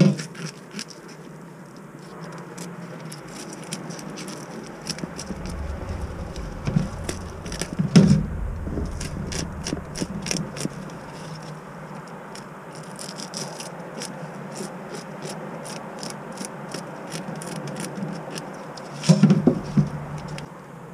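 Metal spoon scraping the scales off whole redear sunfish over a plastic colander: a quick, continuous run of short raspy scrapes and clicks as the scales flick off, with a louder knock or two along the way.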